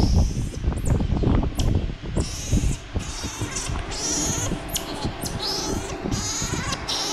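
Baby monkey calling: a string of short high-pitched squeaky calls, a dozen or so, over close rustling and knocking from handling.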